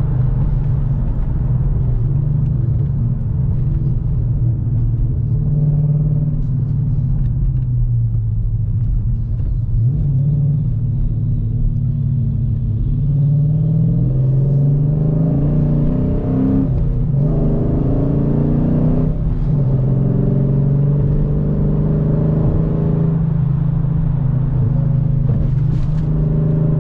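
2018 Dodge Challenger R/T Scat Pack's 6.4-litre 392 Hemi V8 with long-tube headers and a Flowmaster exhaust, a steady low drone while driving. Its pitch rises a few times about halfway through as the car accelerates, then falls back to a steady cruise.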